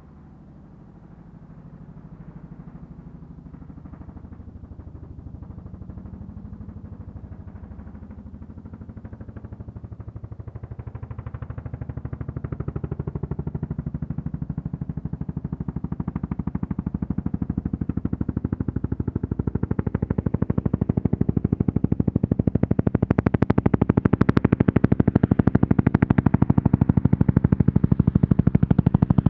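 Bell 212 twin-turbine helicopter approaching fast, its two-bladed main rotor beating in a quick, even rhythm that grows steadily louder and sharper as it closes in.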